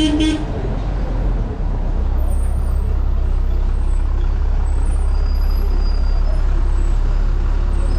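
City bus engine running close by, a steady low rumble that settles in and grows stronger about two seconds in.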